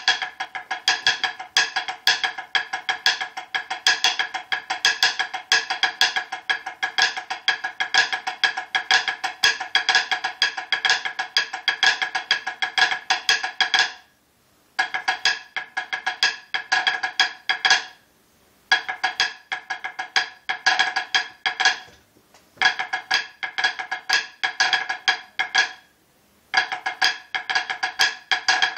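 Snare drumsticks playing simple sixes, a steady stream of fast, even strokes with a bright ring. The strokes run unbroken for about fourteen seconds, then come in phrases of a few seconds with short breaks between them.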